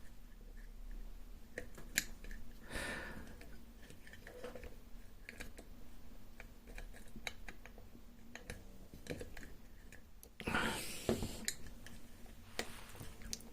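Small metal clicks and scrapes of steel lock levers being lifted and slid out of an opened lever lock, scattered and irregular, with a louder scraping handling sound about ten seconds in.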